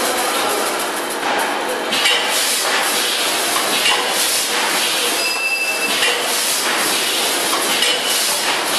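VFS5000FS vertical form-fill-seal granule packing machine running: a dense, continuous clatter of metal knocks and clinks. A brief high steady tone sounds about five seconds in.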